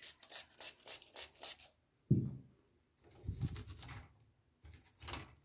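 Toothbrush bristles scrubbing a circuit board wet with alcohol, in a quick run of about eight strokes, then a few more near the end. A single thump about two seconds in is the loudest sound.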